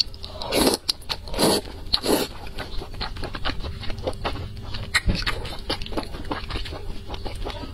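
Close-up mouth sounds of eating wide flat noodles in chili oil: three wet slurps in the first two seconds, then chewing with many small, sharp smacking clicks.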